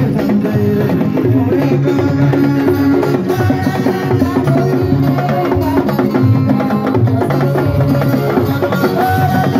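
Live band music: a guitar playing over a busy drum and hand-percussion rhythm.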